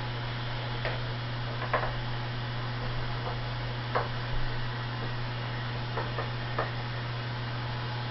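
A few faint, scattered clicks and knocks of things being handled at a stainless steel kitchen sink and its faucet, over a steady low hum.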